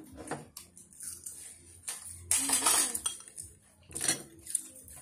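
Chopsticks clinking and scraping against ceramic rice bowls during a meal, a few light clinks and a louder half-second scrape about two and a half seconds in.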